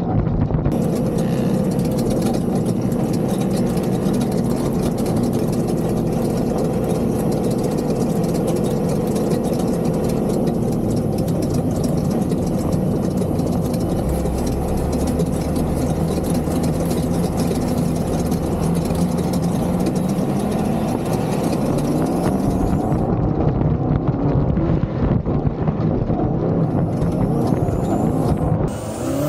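Engine of a 1300-horsepower sand rail running hard during a dune ride, its pitch rising and falling with the throttle.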